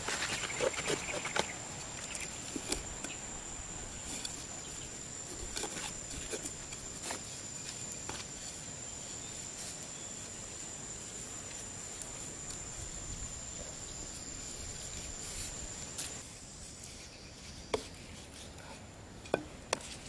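Scattered light clicks and knocks of bamboo sticks and a plastic basket being handled and set up as a trap, over a steady high-pitched tone that cuts off about sixteen seconds in.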